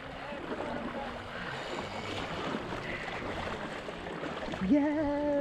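Shallow sea water sloshing and splashing steadily. Near the end a person's voice calls out one long held note.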